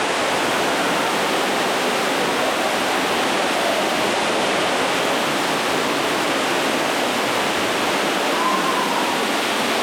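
Steady, loud rush of a waterfall, with faint voices underneath.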